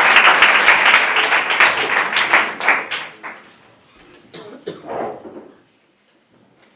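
Audience applauding, the clapping thinning out and dying away about three seconds in, followed by a few faint scattered knocks.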